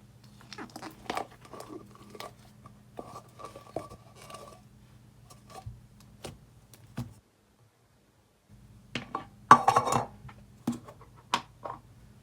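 Thick, glossy slime with large styrofoam beads being squished and stretched by hand: irregular sticky clicks and crackling pops, with a denser, louder run of crackles about nine to ten seconds in. A brief stretch of silence comes about seven seconds in, and a faint steady hum lies underneath.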